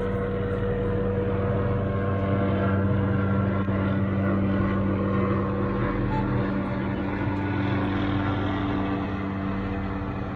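Police helicopter flying overhead: a steady engine-and-rotor drone.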